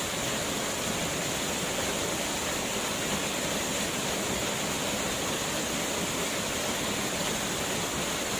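Waterfall pouring: a steady, even rush of falling water with no change through the stretch.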